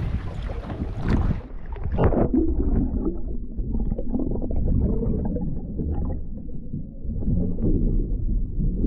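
A camera plunged into the sea with a splash about a second in, then muffled underwater sound: a low rumble with gurgling and crackling of water moving past the camera.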